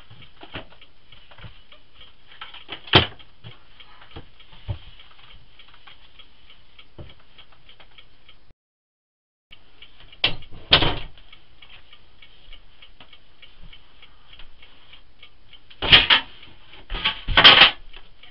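Sharp knocks and clatters of demolition work on a wooden closet door frame: one about three seconds in, a pair about halfway, and a louder cluster near the end, over a constant faint high ticking hiss. The sound drops out completely for about a second just before halfway.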